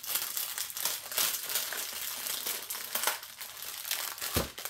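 Plastic packets of diamond painting drills crinkling as they are handled and opened, with a soft thump near the end.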